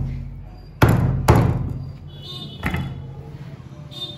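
Heavy butcher's cleaver chopping through chicken onto the cutting surface: two hard chops about half a second apart around a second in, then a lighter one near three seconds.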